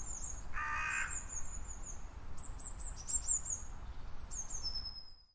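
Wild birds chirping: many short, high calls that slide downward, in clusters, with one lower, harsher call about half a second in, over a low steady rumble. The sound fades out near the end.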